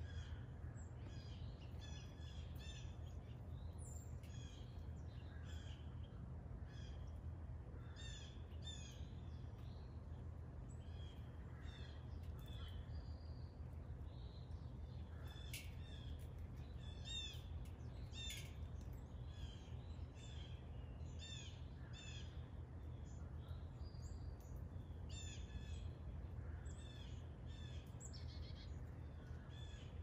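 Wild birds chirping and singing, with many short, overlapping phrases of quick high notes, over a steady low background rumble.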